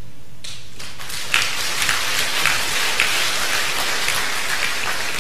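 Crowd applause: a dense, steady patter of many hands clapping. It starts abruptly about half a second in and holds at an even level.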